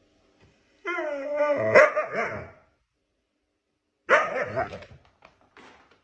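A dog giving two drawn-out barking calls: a long one lasting nearly two seconds about a second in, and a shorter one about four seconds in, followed by a few faint short sounds.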